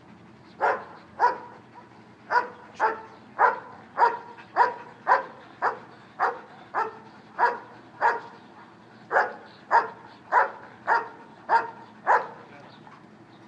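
German shepherd police dog barking steadily, about nineteen short barks at roughly two a second, then stopping.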